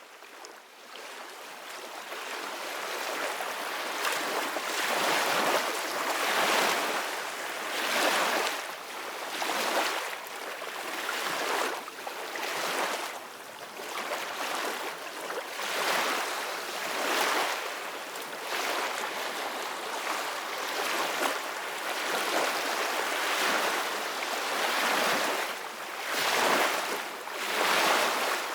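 Ocean surf washing on a shore. It fades in from silence over the first few seconds, then rises and falls in repeated swells.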